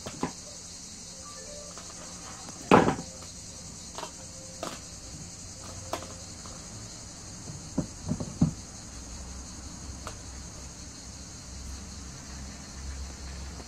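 Scattered light knocks and clicks of fishing tackle and monofilament line being handled on a table while a rig is tied, the loudest a little under three seconds in. A steady high-pitched hiss sounds underneath.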